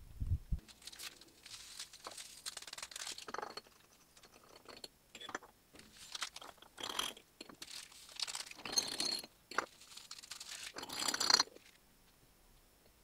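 Paper coffee-sugar sachets being torn open and crinkled, their sugar shaken out through a stainless steel funnel into glass beer bottles: a run of irregular rustling, crackling bursts, the loudest near the end.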